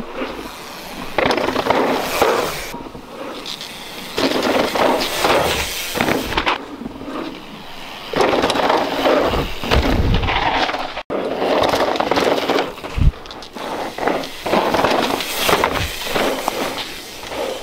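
Mountain bikes riding a loose dirt trail: tyres rolling and skidding over dirt and gravel, with rattling and crackling impacts from the bikes and trailside brush, changing abruptly several times.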